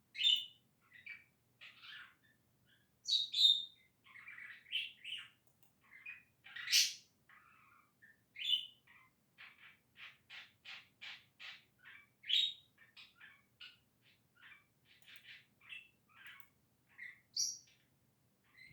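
Budgerigar warbling and chattering in a happy mood: a steady string of varied chirps with a few louder squawks, and a quick run of short, evenly repeated chirps about ten seconds in.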